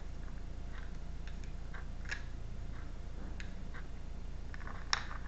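Tarot cards being handled and shuffled: scattered light clicks and taps of the cards, with a sharper click near the end, over a steady low hum.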